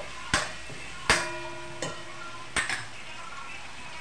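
Metal spatula stirring in a metal kadhai, striking the pan four times with short ringing clanks, the second the loudest, over the faint sizzle of tomatoes and curry leaves frying in oil.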